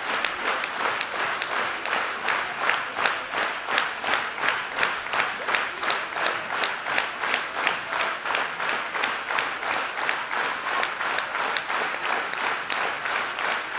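Large crowd applauding, the claps falling into unison at a steady beat of about three a second over a hiss of general applause.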